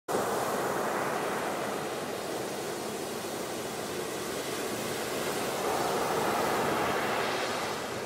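Surf: big waves breaking and rushing up a gravel beach, a continuous rush of water that swells louder about three quarters of the way through.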